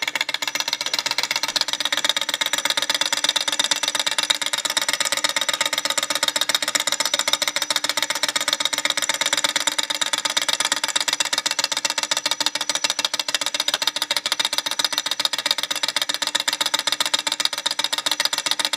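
Model Stirling engine, heated by a rubbing-alcohol burner, running steadily: its pistons and linkage make a fast, even clatter of clicks.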